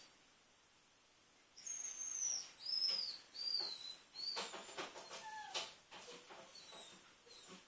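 A Yorkshire terrier giving a run of short, very high-pitched whines and squeaks that rise and fall, starting about a second and a half in, with a few light clicks among them.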